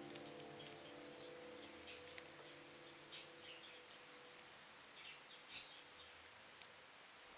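Near silence with faint, scattered small clicks and rustles of handling. A held background-music note fades out over the first few seconds.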